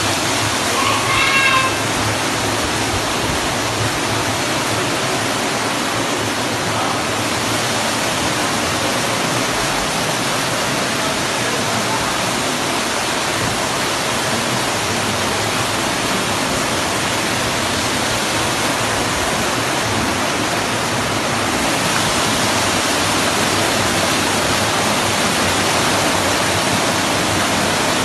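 Floodwater rushing steadily, a loud continuous wash of moving water.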